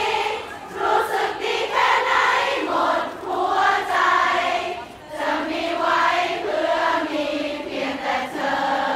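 A crowd of fans screaming and cheering in waves, with high, held shrieks from many voices at once.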